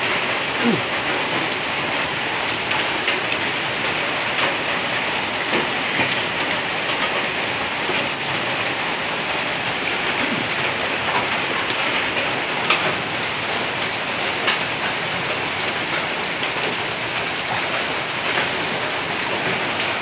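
Steady rain falling on a corrugated zinc roof, with scattered louder drops and ticks.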